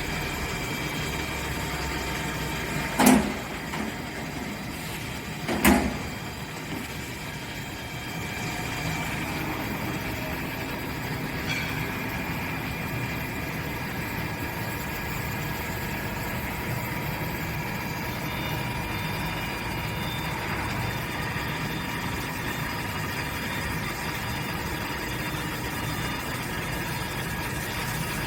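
CNC machine running steadily while machining an electric motor housing, a constant hum with several held whining tones. Two sharp loud knocks come about three and five and a half seconds in.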